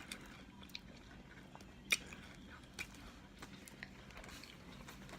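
A person chewing a mouthful of sub sandwich, with scattered soft wet mouth clicks; one sharper click about two seconds in.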